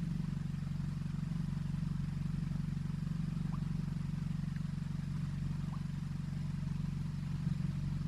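VW four-cylinder petrol engine idling steadily, heard from inside the cabin. It is running smoothly after an ignition coil and spark plug repair, with no misfires counted on any cylinder.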